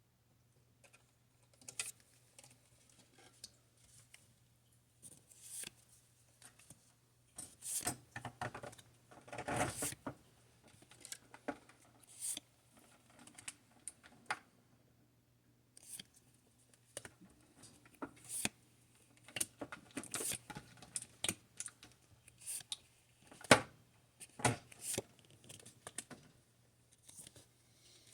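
Pokémon trading cards being handled and flipped through one at a time: scattered light clicks and short sliding, rustling sounds of card on card.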